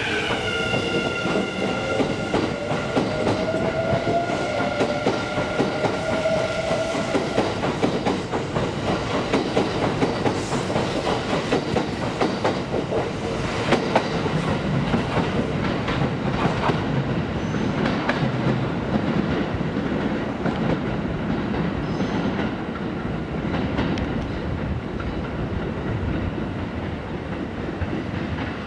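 Kintetsu 22600-series six-car electric limited-express train accelerating out of the station. Its motors give a whine that rises in pitch over the first several seconds. Then the wheels clack over rail joints, growing a little fainter as the train draws away.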